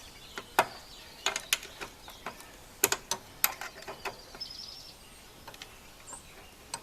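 Socket ratchet wrench clicking in short, irregular runs as a 7/16 bolt on the snowblower gearbox is worked loose. A bird chirps faintly about halfway through.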